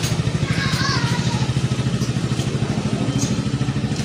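A small engine running steadily nearby with a fast, even putter, like a motorcycle idling.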